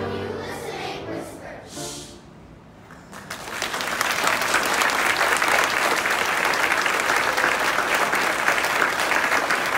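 Audience applause breaks out about three seconds in and goes on as steady, dense clapping. Before it, brief voice-like sounds fade into a short lull.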